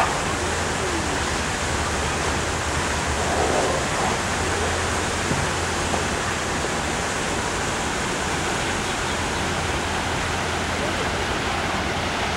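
A steady, even rushing noise, like wind on the microphone or falling water, holds through the whole stretch. Faint voices can be heard in the background about three seconds in.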